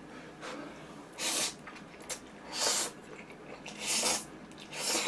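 A man slurping instant noodles, four short loud slurps about a second apart.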